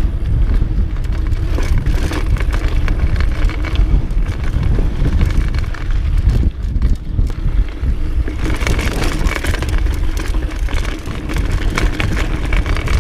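Mountain bike riding down a rocky dirt trail: wind buffeting the action camera's microphone over a steady rumble, with the bike clattering and rattling over rocks throughout, and a brighter, hissier stretch of tyre and wind noise from about two-thirds of the way in.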